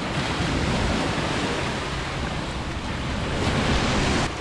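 Sea waves washing onto the beach, mixed with wind buffeting the microphone: a steady rushing noise that swells a little near the end.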